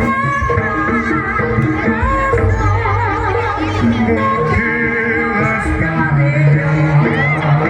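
Live jaranan ensemble music: a wavering, ornamented melody line over drumming and low sustained tones.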